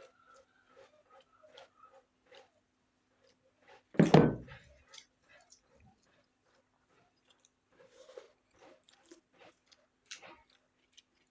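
People chewing food at close range, soft wet chewing in a steady rhythm of about three chews a second, with faint clicks and one loud sharp sound about four seconds in.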